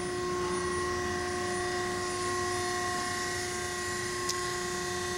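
Strippit Super 750 SG 44-ton hydraulic fabricator running: a steady hum of several held tones over a low rumble, with one faint click about four seconds in.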